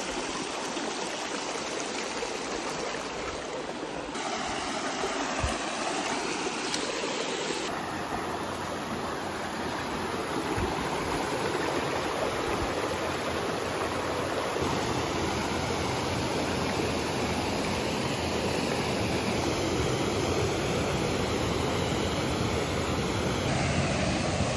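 Shallow rocky river rushing and rippling over stones in a steady wash of water noise.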